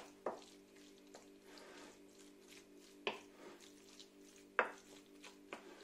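A wooden spoon stirring and scraping a minced-meat filling in a ceramic plate, with a few sharp knocks of the spoon against the plate, the loudest about four and a half seconds in.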